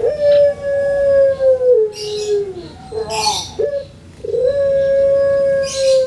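Caged Barbary dove (puter) giving its long coo. Each coo is held on one pitch for about two seconds, then steps down and falls away. A short broken coo comes near the middle, and a second long coo starts about four seconds in.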